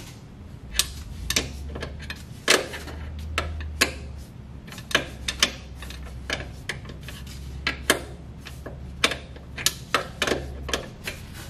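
Ratchet wrench clicking in irregular spurts of sharp clicks as it turns the brake booster mounting nuts on a truck's firewall.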